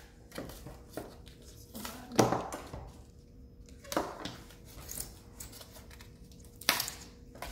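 Paper and cardboard packaging of an iPhone box being handled and pulled apart: a run of short rustles, crinkles and scrapes, the loudest about two seconds in and again near the end.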